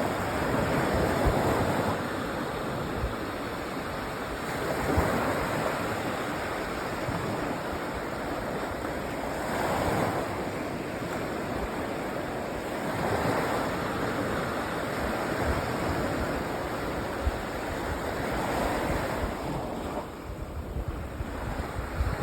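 Small waves breaking and washing up on a sandy beach, the surf swelling every few seconds. Wind buffets the microphone with a low rumble underneath.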